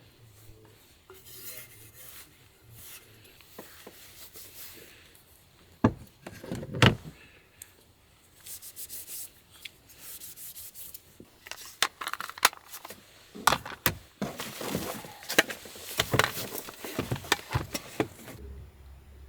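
Camp dishes and cookware being cleaned up by hand: wiping and rubbing with napkins, rustling, and scattered knocks and clinks as items are handled.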